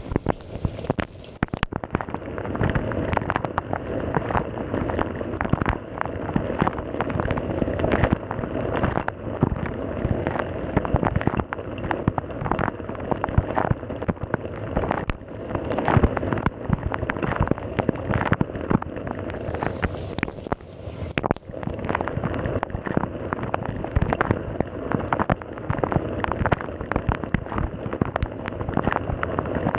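Water spraying and splashing inside a Samsung dishwasher during a wash, a dense, irregular pattering of drops and jets.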